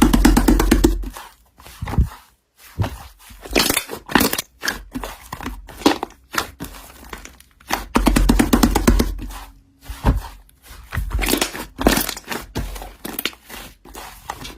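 Slime being pressed and worked by hand, giving a dense run of crackling pops and clicks, with two heavier presses: one at the start and one a little past halfway.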